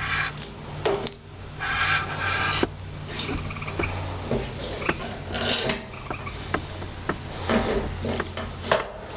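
Fuel-pump lock ring and rubber gasket being handled and fitted to the fuel tank: scattered sharp clicks, knocks and short scraping rattles. Insects chirp steadily in the background.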